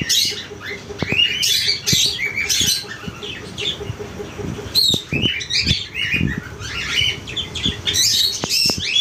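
A room of caged pet birds, cockatiels among them, chirping and squawking all at once, with scattered short knocks and rustles from the cages.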